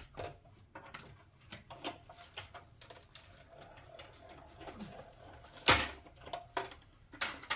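Manual die-cutting and embossing machine being hand-cranked, the plates and embossing folder rolling through with a run of irregular clicks and knocks, and one loud knock a little under six seconds in.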